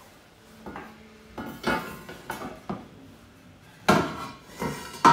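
Die-cast aluminium light housings clanking as they are handled and knocked against one another and the wooden floor: a run of separate metallic knocks, the loudest about four seconds in.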